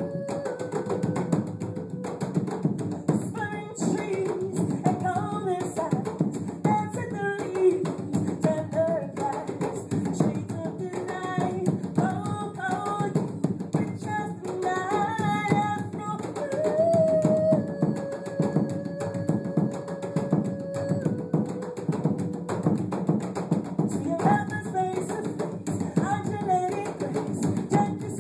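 African hand-drum ensemble, djembes struck with bare hands in a busy, steady rhythm, with a woman singing a melody without words over them and holding one long note about two-thirds of the way through.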